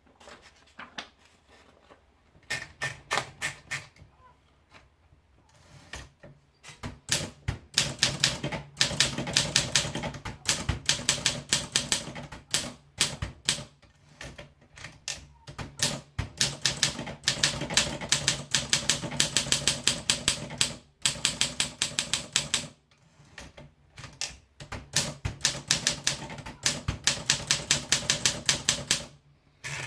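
Olympia SM3 portable manual typewriter being typed on: runs of quick, sharp key strikes broken by short pauses.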